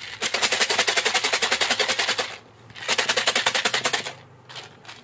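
Fish-feed pellets rattling inside a plastic jar shaken hard by hand, mixing them with garlic liquid. The rattle comes in two bouts with a short pause about two and a half seconds in.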